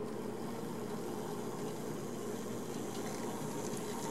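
HO scale Varney Little Joe steam switcher model running at low speed on the track, its small electric motor and gearing giving a steady hum.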